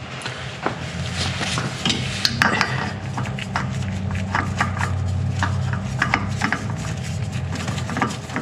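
A new spin-on oil filter being handled and screwed on by gloved hands: a run of small clicks, scrapes and rubbing of metal and nitrile gloves, over a steady low hum.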